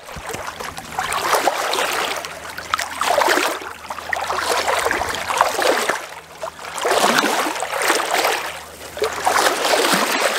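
Sea water rushing and splashing along a moving sailboat's hull, swelling and easing about every two seconds.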